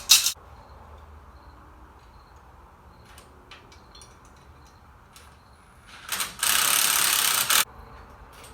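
A sharp knock at the start, then light metal clicks and taps of hand-tool work on the go-kart's axle. A power tool runs in one short burst of about a second and a half near the end.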